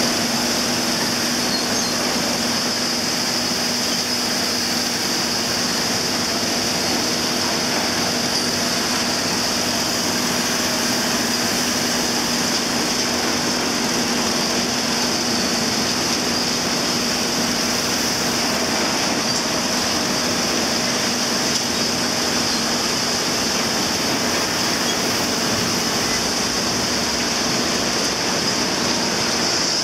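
Palm oil mill nut-recovery machinery running: conveyors, an elevator and their drive motors make a steady industrial din, with a high hiss over a low hum.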